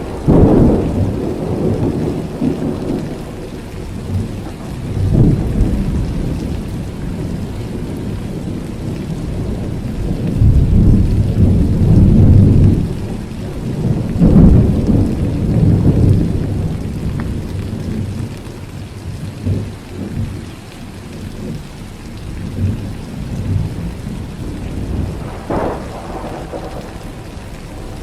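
Thunderstorm: steady heavy rain with repeated rolls of thunder rumbling in and fading. The loudest rumbles come about ten to sixteen seconds in.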